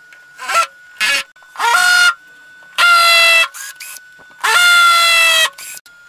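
Cordless drill driving wood screws into a wooden board: a series of short runs of the drill's motor whine, started and stopped in quick succession, the longest lasting about a second near the end.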